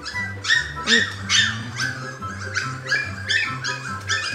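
Siberian husky puppies whining and squealing, many short high-pitched cries one after another, over background music with a steady bass line.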